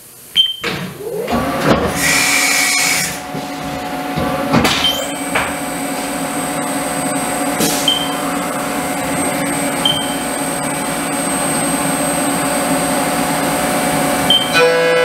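CNC milling machine starting its job. The spindle whine rises about four and a half seconds in and then holds as a steady high tone, over the hiss of flood coolant spraying on the aluminum part. A few short chirps sound along the way, and music comes in at the very end.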